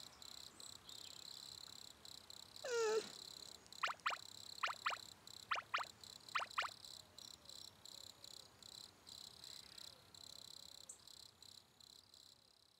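Background ambience of crickets chirping in a steady pulsing chirr that fades out near the end. About three seconds in there is a short falling whimper, and after it come four pairs of quick, sharp chirping calls, frog-like, spread over the next three seconds.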